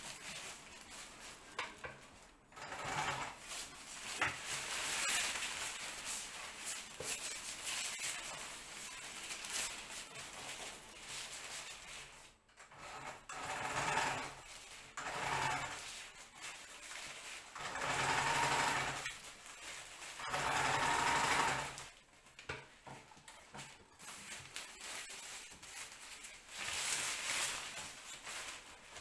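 A domestic sewing machine stitching through layers of kite fabric in stop-start runs of a few seconds, easing off briefly a few times as the fabric is repositioned.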